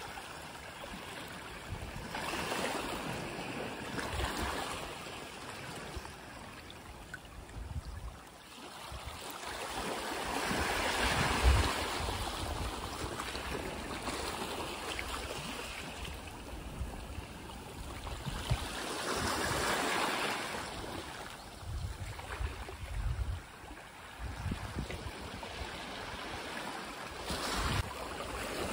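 Small waves washing in among coral-limestone rocks at the shoreline, a hiss of water that swells and ebbs every several seconds, with a low rumble now and then.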